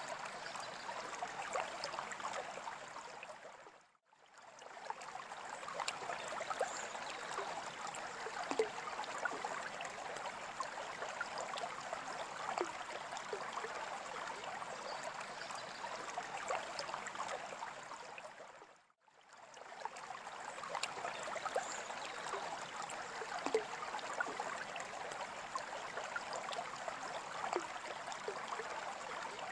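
Water trickling and bubbling steadily with many small splashes, fading out briefly and back in about 4 seconds in and again about 19 seconds in.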